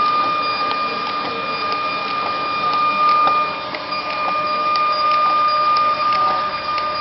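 TSC TTP-384M thermal transfer label printer running, a steady high motor whine with faint scattered clicks as it feeds labels through.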